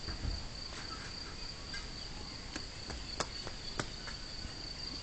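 Crickets singing a steady, unbroken high-pitched trill, with a few sharp clicks over it.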